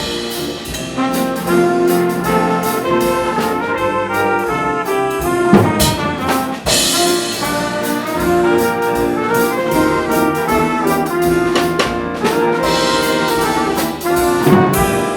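School jazz ensemble playing: trumpets, trombones and saxophones in chords over a drum kit, with steady drum strikes and two bright high swells.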